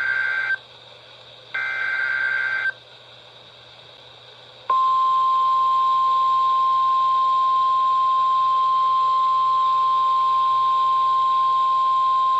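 Emergency Alert System SAME data header: two buzzy digital bursts about a second long with about a second's gap between them. Then, about four and a half seconds in, the single steady 1050 Hz NOAA Weather Radio alert tone begins, the signal that a warning message (here a flash flood warning) follows.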